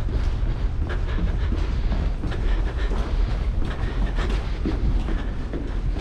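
Subway train running in the tunnel: a steady heavy low rumble with scattered clicks and rattles.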